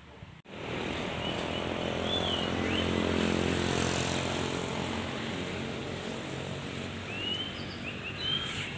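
A motor vehicle engine running nearby with a steady hum, loudest around three seconds in, coming in abruptly about half a second in. A few short high chirps, like birds, sound over it.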